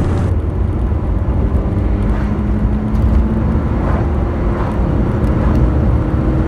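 Truck engine and road noise heard from inside the cab while driving: a steady low rumble with a faint engine hum that shifts in pitch partway through.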